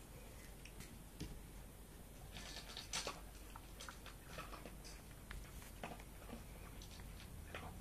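Almost three-week-old Swedish Lapphund puppies moving and mouthing each other on their bedding: faint scattered scratching, rustling and small clicks, with a slightly louder cluster about three seconds in.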